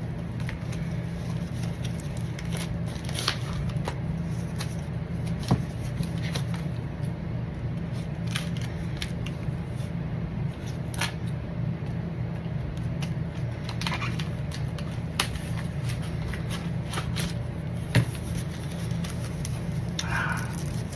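Card packaging being unwrapped and handled, with scattered rustles, crinkles and sharp clicks over a steady low hum.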